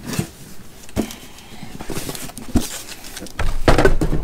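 Handling noise from a DeWalt 12V Xtreme cordless bandsaw being picked up: a few scattered knocks, then a louder, steady low rumbling and rustling about three and a half seconds in, as a hand grips the tool.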